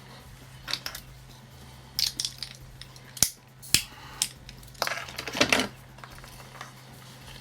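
Small handling noises as wires, a clip and a lighter are worked by hand: a few sharp clicks and knocks and a brief rustle about five seconds in, over a low steady hum.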